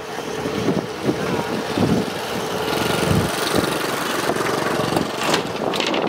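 Rice combine harvester's engine running steadily nearby, with wind gusting on the microphone about two and three seconds in.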